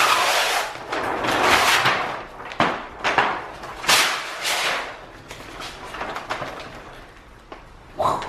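A large sheet of gloss black vinyl wrap film rustling and crackling as it is shaken out and stretched, with a few sharp snaps of the film about halfway through, then softer rustling.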